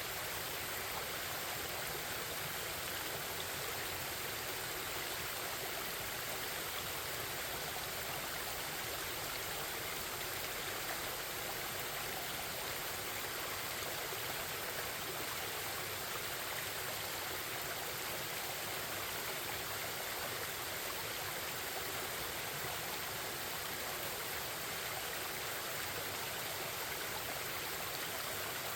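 Forest stream babbling, a steady rush of running water.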